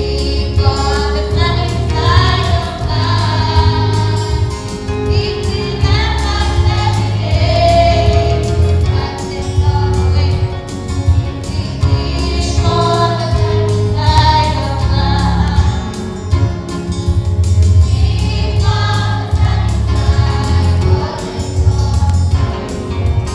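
A children's choir singing a gospel song together over an accompaniment with a strong, steady bass line.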